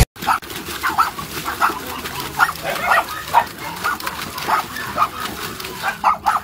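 Dogs barking in a quick string of short barks and yips, about two a second.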